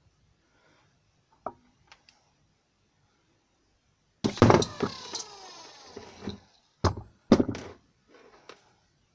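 Bare brushed DC scooter motor run straight off a battery: it kicks in suddenly, then its whine falls steadily in pitch as it winds down once power is removed. Two more short bursts of the motor follow near the end. A few light clicks of the wire touching the terminal come first.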